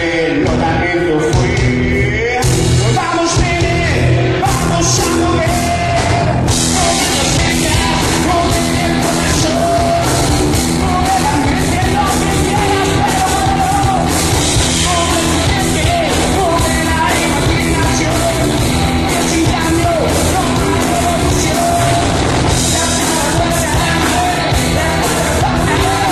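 Live reggae-rock band playing: electric guitar, bass guitar and drum kit, with a voice singing over it. The cymbals come in fuller about six seconds in.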